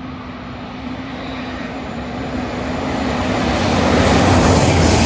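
Great Western Railway Intercity Express Train approaching at speed on the fast line, its roar growing steadily louder as it nears and peaking near the end. A steady low hum under it drops away about three and a half seconds in.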